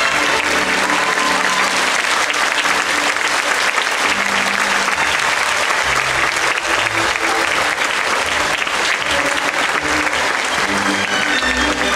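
A large theatre audience applauding, a dense continuous clapping, with music playing underneath.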